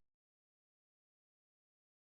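Digital silence: the audio cuts off abruptly at the start and nothing at all is heard.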